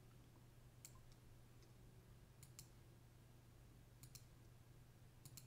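Faint computer mouse clicks, several of them in quick pairs, over a low steady hum of near-silent room tone.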